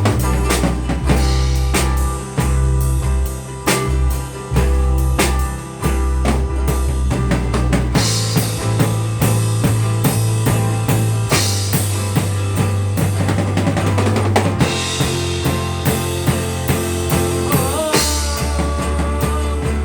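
Live band playing an instrumental passage of a worship song: drum kit with bass drum and snare keeping a steady beat over a sustained bass line and held chords.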